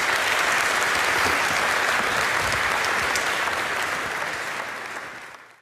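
Audience applauding steadily, then fading out near the end.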